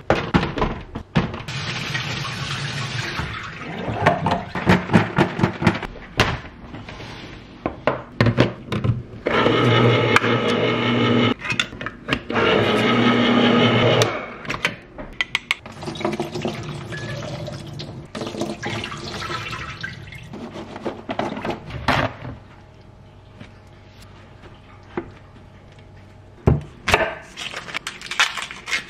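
Kitchen tap water running over zucchini and green peppers in a sink colander, then an electric can opener's motor running in two steady spells as it opens two cans of corn. Near the end, sharp clicks and knocks of a knife and onion skins on a wooden cutting board.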